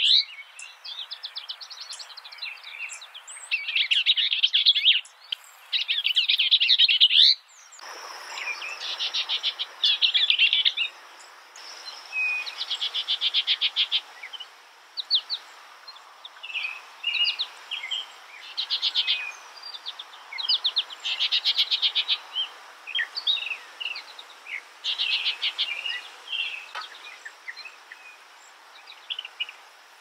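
A songbird singing in short phrases of rapid repeated notes and trills, with brief pauses between the phrases. About eight seconds in, the background hiss gets fuller.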